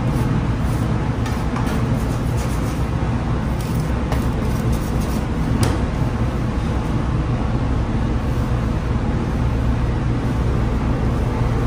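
A steady low machinery hum fills the room. Over it come faint scrapes and soft knocks of dough being kneaded on a stainless steel table, with one sharper knock about six seconds in.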